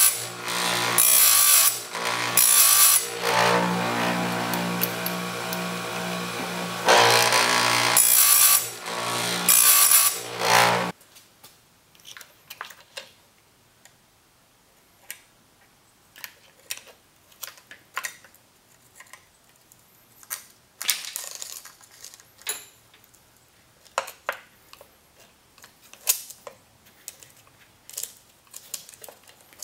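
Bench-mounted electric chain-sharpening grinder running with a steady motor hum, its abrasive wheel grinding the saw chain's cutters in several short, loud passes; the grinder stops about a third of the way in. Then the saw chain clicks and rattles lightly as it is fitted by hand back onto the chainsaw's guide bar.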